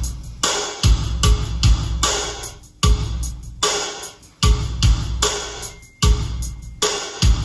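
Rock song with a heavy drum kit beat and bass, played back on an Olimp MPK-004S reel-to-reel tape recorder.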